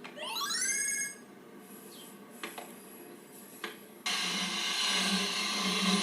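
Animated-film sound effects: a short rising whistle-like glide, then two light clicks, then a steady, loud whirring with a low hum starting about four seconds in.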